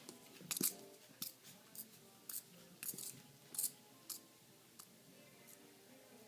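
A shih tzu–poodle puppy chewing and mouthing a Christmas ornament: irregular sharp clicks and crunches, the loudest about half a second in, then one every half second or so.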